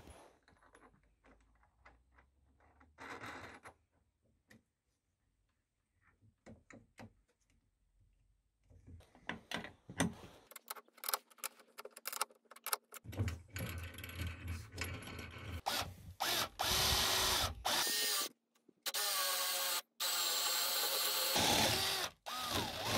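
Scattered metal clicks of a spanner turning a nut on a wheel bolt, then a cordless drill with a spade bit boring into a wooden beam, running loudly in two long spells through the second half with brief changes in speed.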